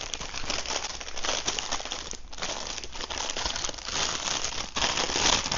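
Plastic packaging crinkling and rustling as it is handled, with a short lull about two seconds in.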